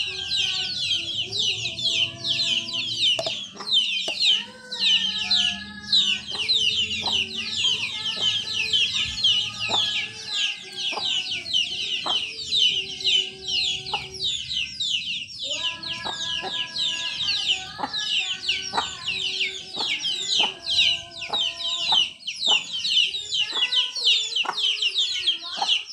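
A brood of chicks peeping without pause, many quick, high, falling peeps overlapping, with lower clucking from the hen among them.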